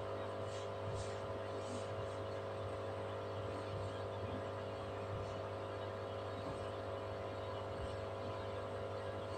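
A steady low hum, like electrical mains hum, at an even level.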